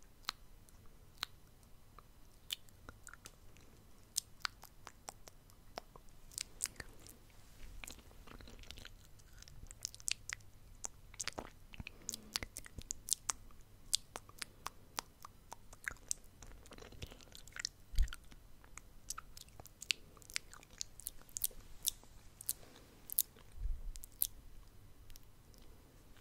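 Close-miked ASMR mouth sounds: irregular wet clicks and pops of the lips and tongue. A couple of low thuds come about two-thirds of the way through and near the end.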